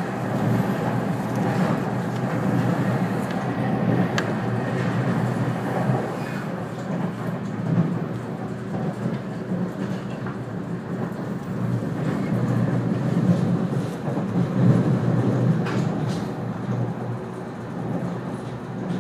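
A 485-series electric train running at speed, heard from inside the carriage: a steady rumble of wheels on rail and running gear, with a faint click or two.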